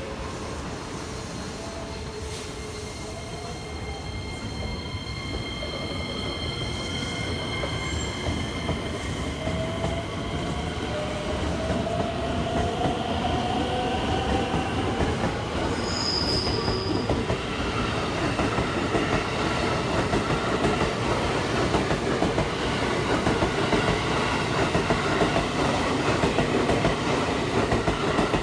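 JR West 225 series and 223 series electric train pulling away and accelerating. The motor whine rises in pitch through several steps, and the rumble and clatter of wheels on rail grow steadily louder.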